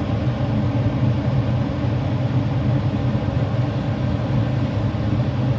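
AAON rooftop HVAC unit running steadily in gas-heat mode, a constant low rumble of burner and fans.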